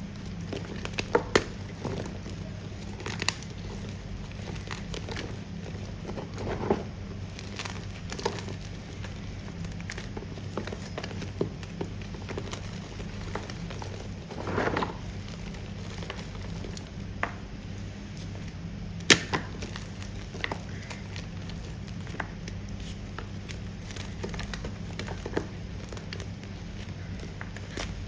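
Close-miked crunching of firm, re-formed (pasted) gym chalk being bitten and chewed: irregular sharp crunches and clicks, with a longer run of crunching about halfway through.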